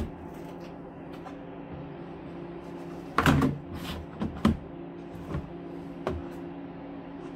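A plastic storage tote being handled. Its perforated plastic lid is set on and pressed down onto the tub with a loud plastic knock about three seconds in, followed by a few lighter knocks as the tote is lifted and tilted. A steady low hum runs underneath.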